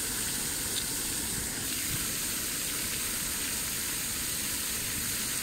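Water fountain jets spraying and splashing, a steady rushing noise.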